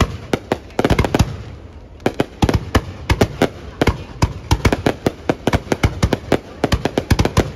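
Aerial fireworks bursting in rapid, irregular volleys of sharp bangs, several a second, with a brief lull about two seconds in.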